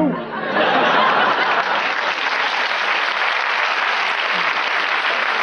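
Studio audience applauding, breaking out just after the start and holding steady, with some laughter mixed in.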